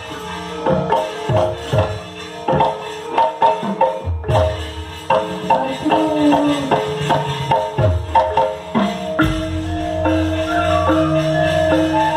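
Javanese gamelan playing: bronze kettle gongs and metallophones ring in quick, dense strokes. About nine seconds in, a deep gong stroke comes in and keeps ringing under the melody.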